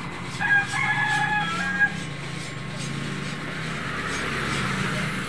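A rooster crowing once, a pitched call of about a second and a half, over a low steady rumble.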